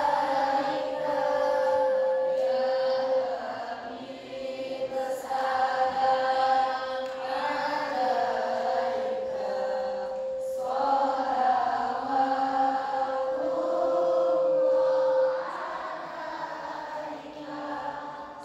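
A voice chanting in long, wavering melodic phrases, with a steady tone held beneath it that drops out briefly twice.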